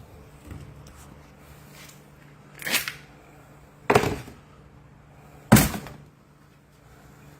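Three heavy thunks, each a sudden knock with a short tail, spaced a second or so apart, over a faint steady hum.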